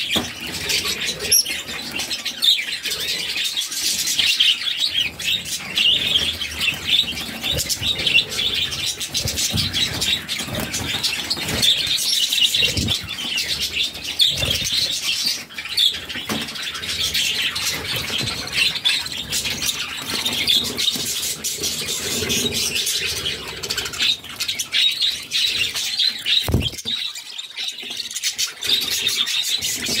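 Budgerigars chirping and chattering continuously, with many quick high calls overlapping.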